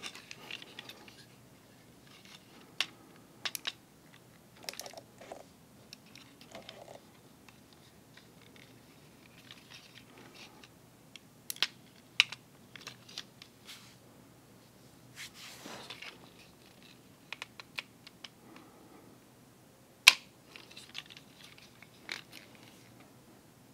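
Plastic joints and panels of a Reboost MP-54 Transformers Masterpiece figure clicking and snapping as it is transformed by hand: scattered sharp clicks, the loudest about twenty seconds in, with a brief rustle near the middle.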